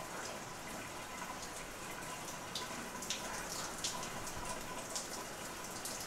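Shower head running, water spraying and pattering steadily onto the shower floor, with scattered sharp ticks through it.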